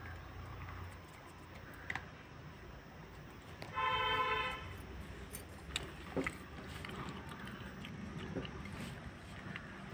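A single short horn toot held on one steady pitch for under a second, about four seconds in, over a low steady background rumble, with a few faint clicks.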